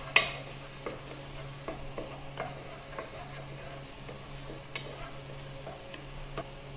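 Chopped onion and garlic sizzling in oil in a nonstick pan as a wooden spoon stirs them, with light knocks and scrapes of the spoon on the pan under a second apart and a sharper knock just after the start. The onion is at the sweating stage, softening until translucent.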